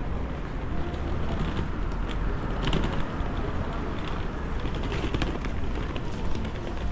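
Outdoor city street ambience: a steady low rumble with a few scattered light clicks and taps.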